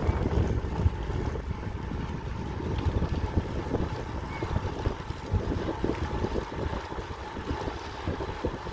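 Wind buffeting the microphone of a camera riding along on a road bike, an uneven, gusty rumble, mixed with the rolling noise of the bike on asphalt.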